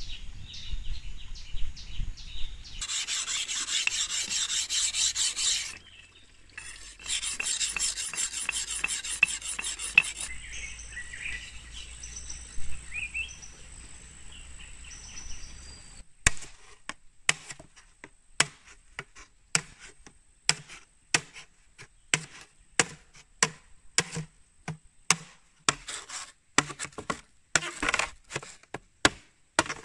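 Bamboo being cut with hand tools: two bouts of fast rasping saw strokes, then from about halfway a steady run of sharp chopping knocks, about one and a half a second, as a blade cuts into the bamboo. A steady high insect whine and a few bird chirps are in the background.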